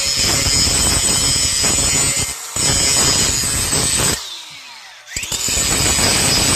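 A grinder grinding on a metal mower-deck bracket, a loud, steady rasp with a high whine. It lets up briefly about two and a half seconds in. A little after four seconds the sound drops away with a falling whine as the disc spins down, then the grinder starts up and bites again about a second later.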